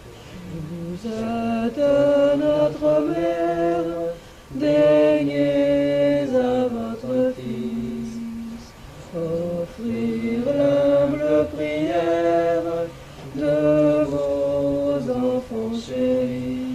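Devotional mantra chanting: voices singing unaccompanied in slow phrases of held notes, each a second or two long, with short breaks between phrases.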